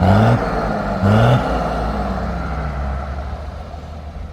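Mercedes-Benz O-362 monobloc bus's diesel engine given two quick throttle blips, at the start and about a second in, each a brief rising rev, then dropping back to a steady idle.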